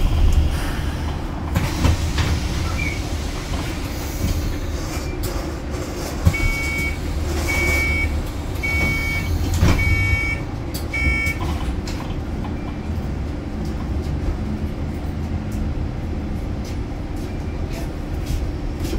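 Hybrid bus running with a low steady hum inside the saloon; about six seconds in, five electronic warning beeps sound about a second apart, the bus's door warning beeps.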